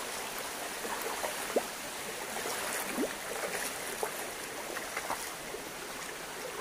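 Shallow forest stream running over stones and a small waterfall: a steady rush of water with a few short rising plops.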